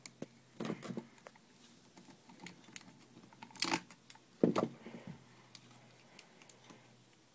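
Scattered small clicks and knocks of a screwdriver working on an airsoft M4 gearbox's screwed-on motor connectors, with louder knocks about a second in, near four seconds in and again shortly after.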